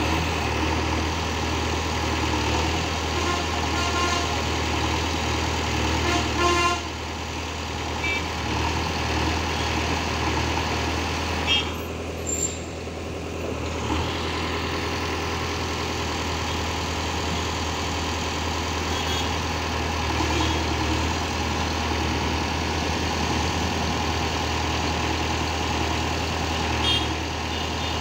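JCB 3DX backhoe loader's diesel engine running steadily as the machine works, with a few short knocks.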